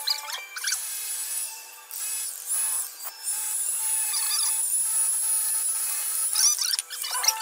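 Wood being carved by hand: tools scraping and rubbing on the wood of a statue, over a steady high whine from a flexible-shaft rotary carving tool that dips in pitch now and then.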